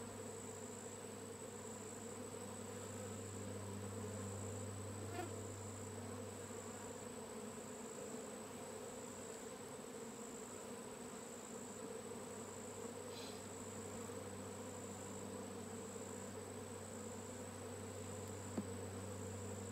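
Honeybee swarm buzzing, a steady low hum of many wings. Above it a high, thin insect trill breaks off and resumes about once a second, and a single sharp tick sounds near the end.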